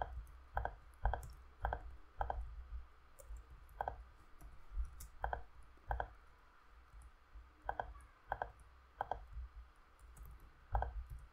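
Irregular clicking of a computer mouse and keyboard: single sharp clicks, often about half a second apart, with short pauses between runs.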